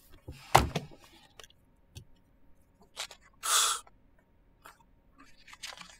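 A sharp thump about half a second in, then a few faint clicks and a short hiss a little past the middle.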